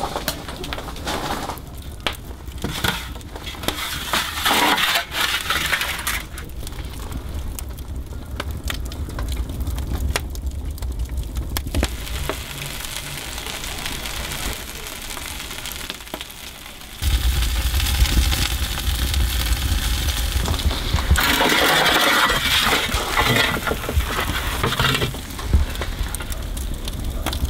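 Metal baking tray clinking and scraping, and a wood fire crackling with many sharp snaps. A steady low rumble comes in about two-thirds of the way through.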